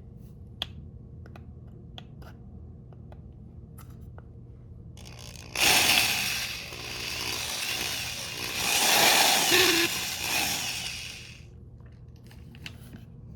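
Power drill boring out a hole in the plastic headphone housing to make room for a second wire: a loud, rough run of about six seconds starting about five seconds in, after a few light handling clicks.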